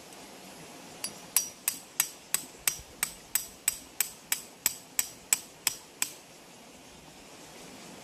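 A hammer striking metal in a steady series of about sixteen sharp, ringing blows, roughly three a second, stopping about six seconds in.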